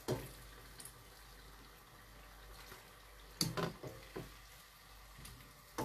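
Faint, steady hiss of sweet potato fritters deep-frying in hot oil, with several short knocks and clicks from kitchenware, the loudest about three and a half seconds in.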